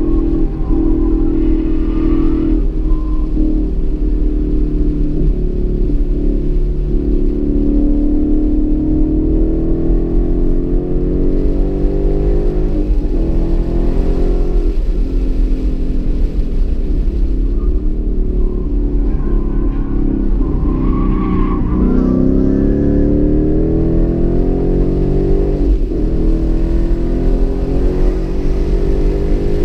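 2015 Ford Mustang GT's 5.0-litre V8, heard from inside the cabin under hard track driving. The engine note climbs in pitch several times as it accelerates and falls back each time, over a constant low rumble.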